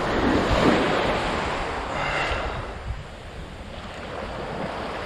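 Ocean surf washing on the beach, with wind buffeting the microphone. It is loudest in the first second and eases off about halfway through.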